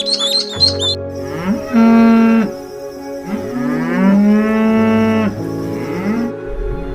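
Cow mooing: two long moos with a few shorter calls around them. Before that, a string of quick, high bird calls stops about a second in. Soft background music runs underneath.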